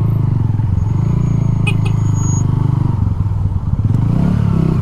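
Motorcycle engine running at low speed, its pitch rising and falling as the throttle is opened and eased, with a few light clicks about two seconds in.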